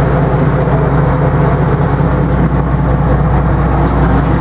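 Tugboat engine running steadily under way, a constant low drone heard from on board.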